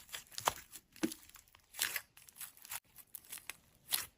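Slime being handled and squished by hand, making irregular short crackles and sticky rustling.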